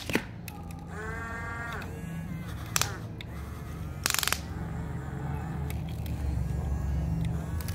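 Huina RC toy excavator's electric motors whining as its arm swings and dumps a bucket of gravel into a toy dump truck. A pitched whine about a second in, a few sharp clicks and a short rattle, and a low hum that grows louder as the load is tipped.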